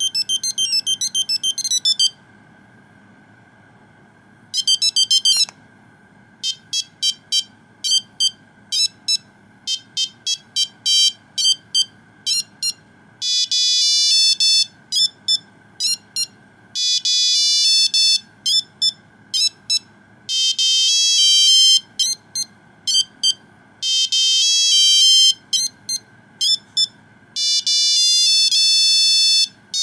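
Nokia 2100 mobile phone playing its built-in monophonic ringtones through its small speaker. A fast run of beeps stops about two seconds in; after a short pause a new tune of short bleeping notes starts, moving into longer held notes about halfway through.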